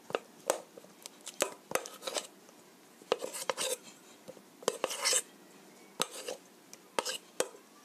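A metal spoon clinking and scraping against a stainless steel mixing bowl as zucchini slices are turned in egg batter: irregular sharp taps with a few short scrapes.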